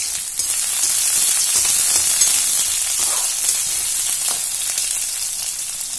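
Coarsely chopped onions and bay leaves sizzling in hot oil in a metal kadhai, just added. The sizzle starts with a sharp click, swells about half a second in, then slowly eases off.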